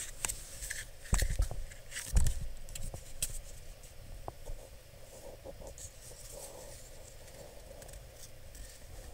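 Handling noise of two plastic car headlight switches being turned over in the hands: light clicks and taps with a couple of dull bumps in the first few seconds, then faint rustling.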